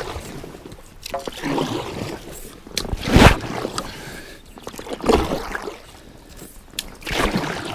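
Paddle strokes of an inflatable kayak splashing into a fast creek current: four strokes about two seconds apart, the loudest a little past three seconds in, with water trickling between them.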